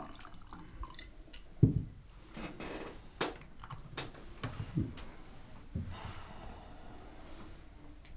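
Cognac being poured into stemmed glasses, then the bottle and glasses handled on a table: a dull thump about a second and a half in, followed by several short clicks and knocks of glass on the tabletop.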